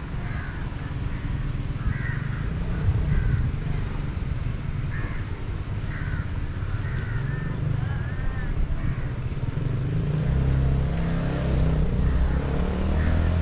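Birds calling in short, repeated calls over a low outdoor rumble. About ten seconds in, a motor engine's steady low hum comes in and grows louder.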